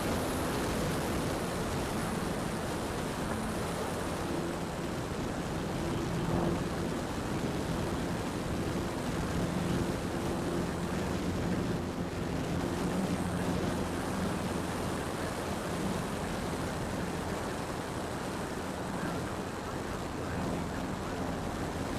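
Steady wind rush over the microphone with a faint low engine drone underneath, which fades out about two-thirds of the way through.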